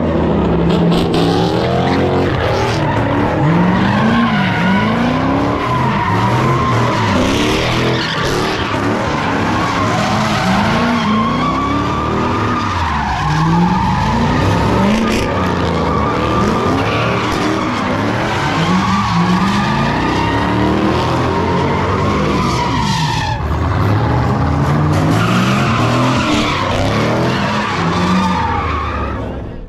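Ford Mustang spinning donuts: the engine revs up and falls back over and over while the tyres squeal without a break.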